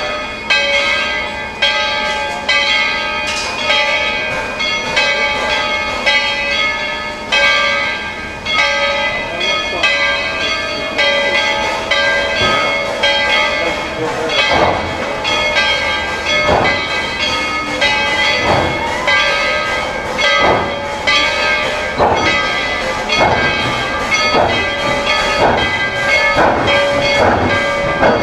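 Steam locomotive's bell ringing steadily, struck about once a second, each stroke ringing on into the next. The strokes sound heavier from about halfway through.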